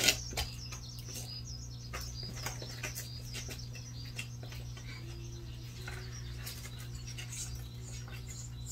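Eurasian tree sparrow chirping: a quick run of short high chirps in the first second or so, then scattered single chirps. A steady low hum runs underneath.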